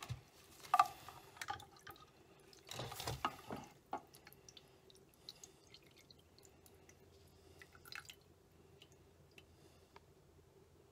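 Pump assembly of a Mercury four-stroke outboard's plastic fuel supply module being lifted out of its fuel-filled housing: a sharp plastic click about a second in, a scraping handling noise around three seconds, then fuel dripping back into the housing in scattered small drips.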